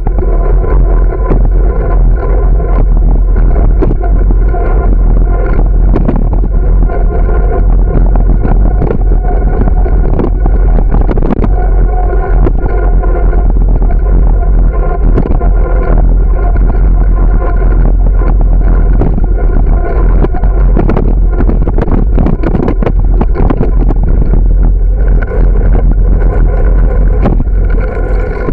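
Wind buffeting the microphone of a bicycle-mounted camera while riding, loud and steady, with a continuous drone and many short knocks and rattles as the bike rolls over cracked asphalt.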